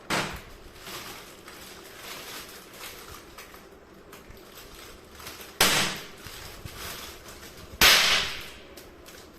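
Three sharp firecracker bangs from small thrown firecrackers: one at the start, then two more about five and a half and eight seconds in. Each is followed by a ringing tail that fades over about a second.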